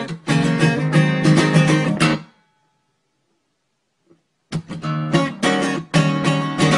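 Guitar being strummed. It stops about two seconds in, leaving about two seconds of silence, then starts again.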